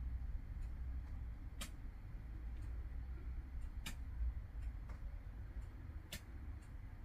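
Three sharp ticks about two and a quarter seconds apart, with fainter ticks between them, over a steady low hum.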